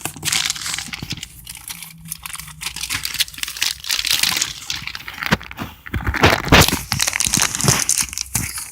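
A cardboard shipping box being opened by hand: crinkling, rustling and tearing of the packaging, with many small clicks and a few louder handling knocks about six to seven seconds in.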